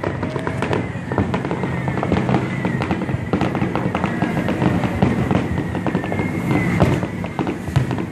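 Fireworks going off in rapid succession, a dense run of bangs and crackles with no break, with music playing underneath.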